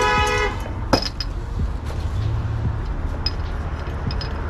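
A vehicle horn honks and cuts off about half a second in, followed by a sharp click and the steady low rumble of road traffic with small scattered ticks.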